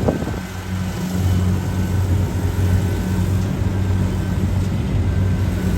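Kubota DC-68 rice combine harvester's diesel engine running steadily, a low even drone that grows slightly louder about a second in.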